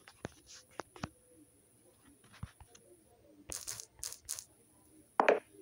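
Faint scattered clicks and short rustling, crinkly noises, with one louder rustle near the end.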